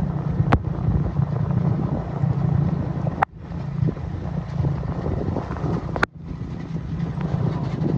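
Engine of a slow-moving vehicle running steadily, with wind rumbling on the microphone; the sound cuts out briefly twice, about three and six seconds in.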